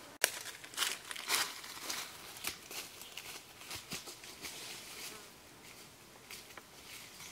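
Footsteps crunching through dry leaf litter and brushing past undergrowth: irregular crisp crackles that start abruptly, come thickest in the first few seconds and thin out after about five seconds. Insects buzz steadily underneath.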